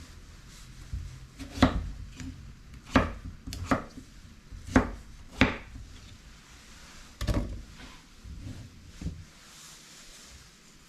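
Knife chopping food on a cutting board: about seven separate chops at uneven intervals of a second or two.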